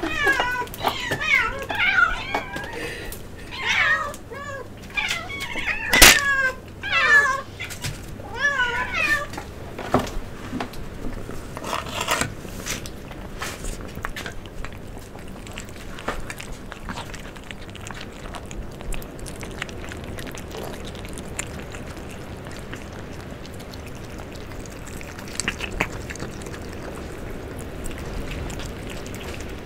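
Several kittens meowing insistently for food, many overlapping calls, with one sharp knock about six seconds in. After about ten seconds the meowing stops and the cats eat close to the microphone: chewing with scattered small clicks.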